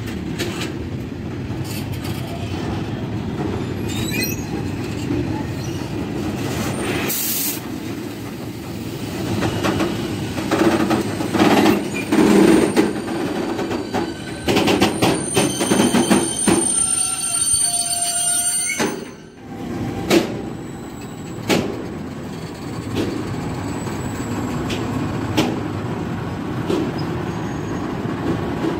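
A train rolling past on the rails, with wheel clicks over the track and a high wheel squeal through the middle stretch, where it is loudest.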